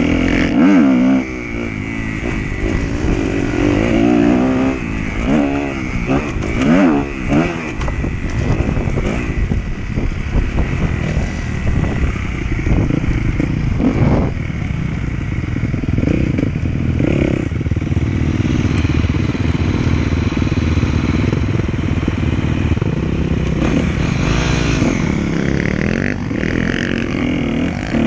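Motocross dirt bike engine heard from on board while riding the track. The revs rise and fall repeatedly over the first several seconds, hold steadier through the middle, then rise and fall again near the end.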